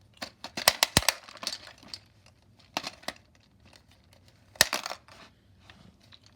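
Coins and the plastic mechanism of a toy gumball machine bank clicking and rattling. There is a quick cluster of clicks in the first second and a half, a couple more around three seconds, and one sharp click with a short rattle near five seconds.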